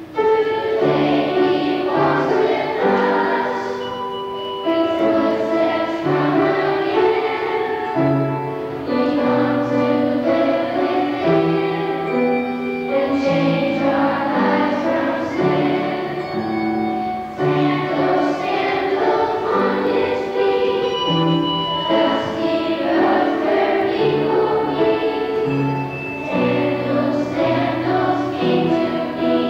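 A group of children singing a song together, starting abruptly.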